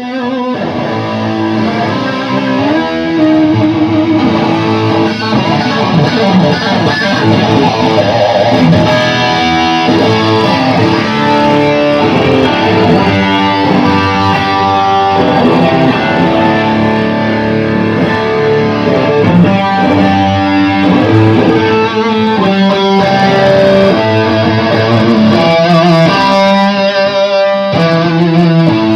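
Electric guitar played through an Orange Super Crush combo amp, a continuous run of changing notes and phrases.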